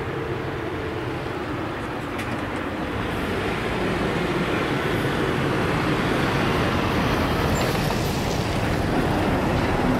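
ATR 72-600's two Pratt & Whitney PW127 turboprop engines and six-bladed propellers at takeoff power as the airliner lifts off and climbs out. The result is a steady rushing engine-and-propeller noise that grows louder from about three seconds in.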